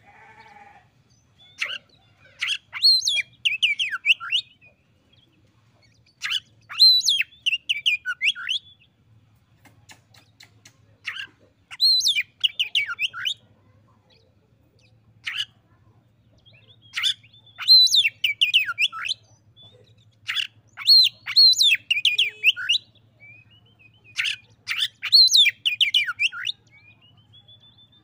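Oriental magpie-robin singing: loud, varied whistled phrases of a second or two each, repeated about every three to four seconds with short pauses between.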